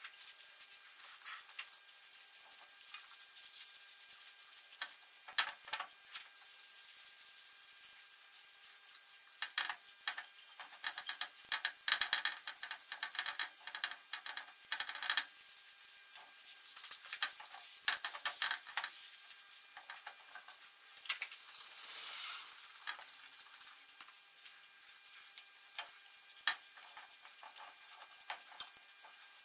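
A cloth rag rubbing and wiping over the cast-iron arm of a Singer 29K33 cobbler's sewing machine: irregular scratchy scrubbing with many light clicks and taps, busiest in the middle.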